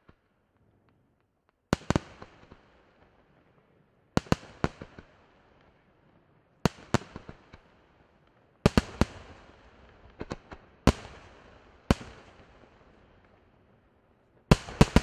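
Aerial firework shells bursting, in clusters of one to three sharp bangs about every two seconds from about two seconds in, each bang trailing off in a decaying rumble.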